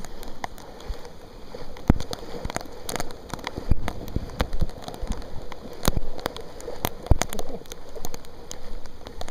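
Heavy storm rain falling, with many sharp, irregular drop hits close by.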